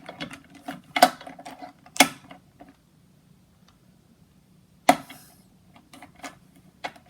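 Rubik's brand 3x3 cube being turned one-handed: quick runs of plastic clicks and clatter, a quiet pause of about two seconds in the middle, then one sharp click and a few more scattered turns.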